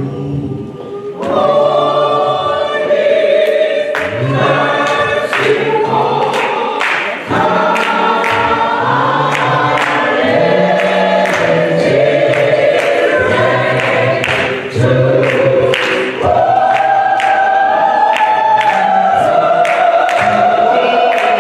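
Gospel choir singing, with a steady percussive beat.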